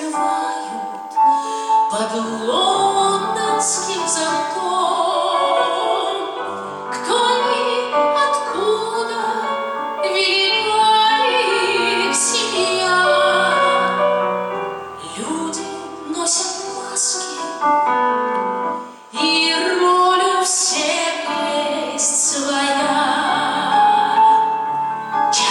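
A woman singing an aria in an operatic style, with instrumental accompaniment.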